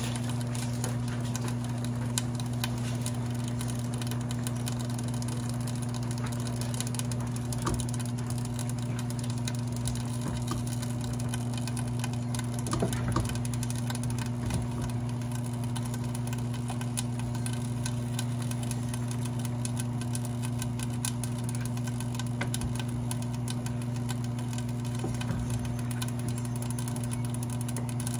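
A steady low mechanical hum, like a motor running, with faint scattered ticks over it.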